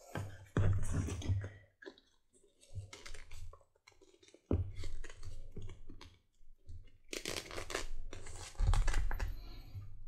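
Stitched leather belt handled and bent by hand: irregular rustling and rubbing of the leather with light bumps, in bursts separated by short pauses.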